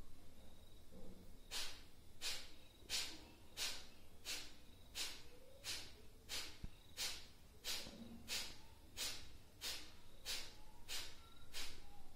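Kapalbhati breathing: a woman's short, forceful exhalations through the nose, each a sharp puff of air, with the inhale left passive and unheard. They start about a second and a half in and keep an even pace of roughly three puffs every two seconds.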